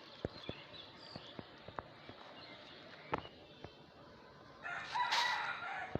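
A rooster crows once, about five seconds in, in a single call lasting a little over a second. Before it come scattered light clicks and crackles, typical of plastic litter and dry debris being picked up by hand.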